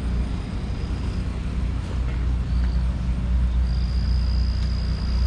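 Steady low outdoor rumble, with a thin, steady high-pitched whine coming in about three and a half seconds in.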